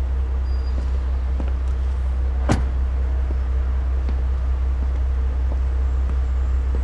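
A parked car's engine idling with a steady low rumble, with faint small clicks and one sharp hit about two and a half seconds in.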